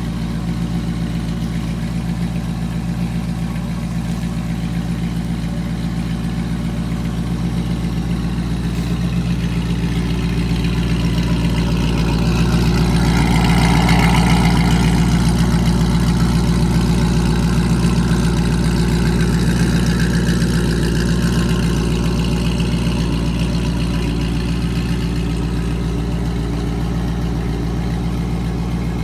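Chevrolet C5 Corvette's LS1 V8 idling steadily, getting louder about halfway through as the exhaust tips come close.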